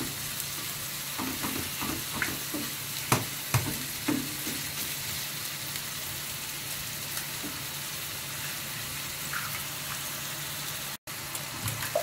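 Ground beef sizzling as it browns in hot olive oil in a frying pan, with a wooden spoon scraping and knocking against the pan now and then in the first few seconds. The sound drops out for a moment near the end.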